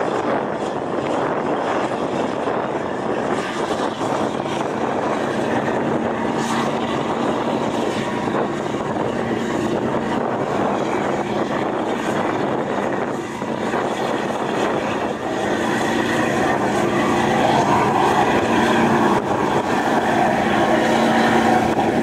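Engines of the fast ferry Majestic Kawanua II running at a steady drone, mixed with a heavy rush of wind and water that swells somewhat louder late on.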